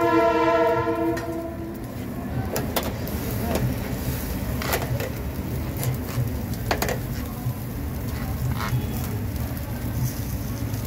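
Metal kebab skewers clinking against each other and the grill's metal edge as chicken skewers are turned over a charcoal grill: several sharp, separate clinks over a steady low hum. A loud, steady, horn-like tone ends about two seconds in.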